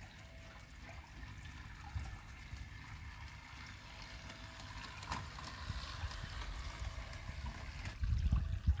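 Water trickling steadily, as from a garden pond's fountain or waterfall, over a low rumble that gets louder about eight seconds in.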